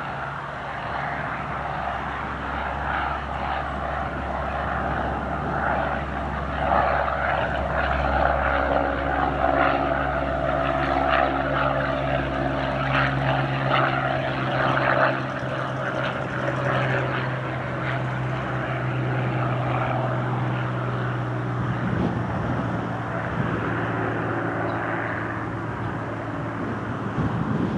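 Rolls-Royce Merlin V12 engine of a Supermarine Spitfire Mk Vc running at high power as the fighter flies low and climbs away, a steady propeller drone.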